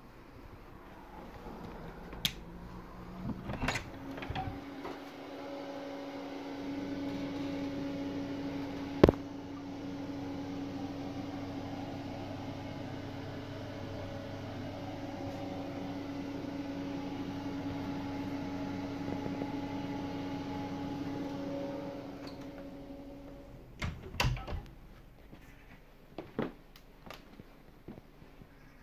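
Small extractor-type fan motor running with a steady hum and airy whoosh. It comes on about four seconds in and stops about 23 seconds in. A few clicks and knocks sound around it, with one sharp click about nine seconds in.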